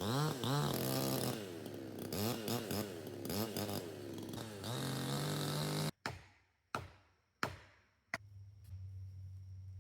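Chainsaw running and cutting, its pitch rising and falling as the throttle is worked, until it cuts off abruptly about six seconds in. Then come a few sharp knocks, each fading away, and a low steady hum.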